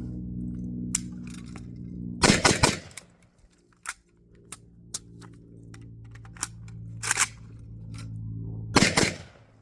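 AK63F rifle (7.62×39mm AKM) firing a quick string of shots a little over two seconds in. Sharp clicks and clacks of a magazine change follow, then another quick pair of shots near the end, as in a reload drill.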